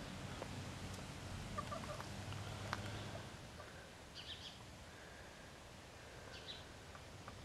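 Backyard chickens clucking in a few short, soft calls, two of them higher-pitched, about four and six seconds in.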